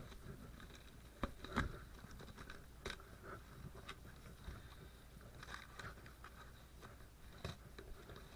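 Scissors cutting and prying into a cardboard package: scattered scrapes, crunches and clicks, with a couple of sharper snaps about a second and a half in and again near three seconds.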